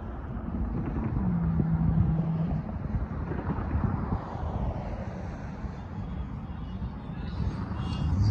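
Road traffic: cars and pickup trucks driving over a railroad crossing, a steady tyre and engine noise that swells and fades as each one passes, with wind on the microphone.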